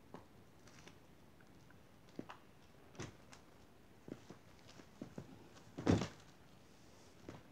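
Scattered light knocks and clicks of things being handled close by, with one louder thump about six seconds in.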